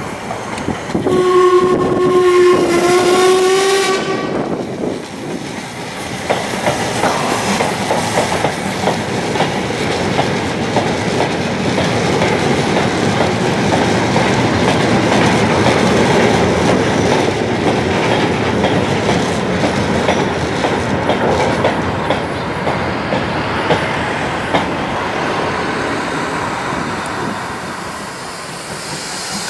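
Steam locomotive whistle sounding for about three seconds near the start, several tones together. Then a rake of open goods wagons running past, their wheels clattering and clicking over the rail joints, which eases off near the end.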